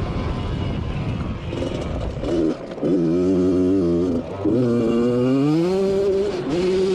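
Single-cylinder two-stroke Yamaha YZ85 engine driving a quad. It revs up with a rising note about halfway through, drops off briefly, then climbs again and holds a steady high note.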